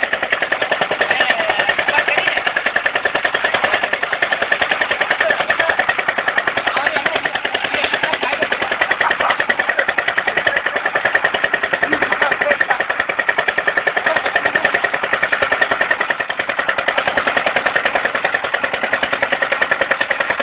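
A small engine running steadily with a rapid, even beat that does not change.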